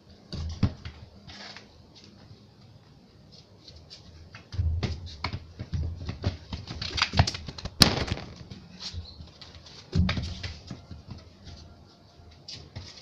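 Scattered thumps, taps and scuffs of feet on a football and on a concrete floor, with deeper thumps in a few clusters and one sharp click just before the middle.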